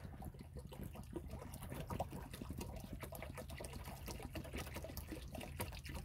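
Faint trickling and dripping of water being poured into a quail's water bowl, with many small irregular drips.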